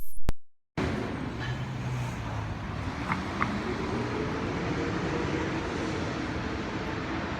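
Microphone knocks and a moment of dead silence as the clip-on mic is pulled off, then steady night-time city ambience: a constant low rumble and hiss of distant traffic, with two brief high chirps about three seconds in.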